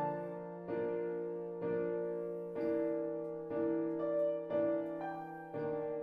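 Piano accompaniment playing alone: six soft chords struck at about one a second, each fading away, while the euphonium rests.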